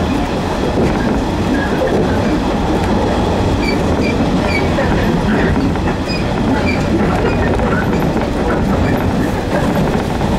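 Running noise of a JR East 115 series electric train at speed, heard inside the passenger car: a steady rumble of wheels on the rails.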